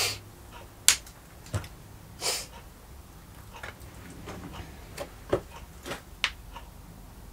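Scattered light clicks and knocks of things handled on a workbench as a ceramic coffee mug is picked up, with one short breathy sound about two seconds in.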